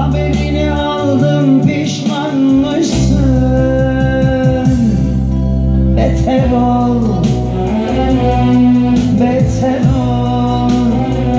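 Live Turkish song: a man singing a wavering, ornamented melody over keyboard accompaniment with a steady bass, played loud through the sound system.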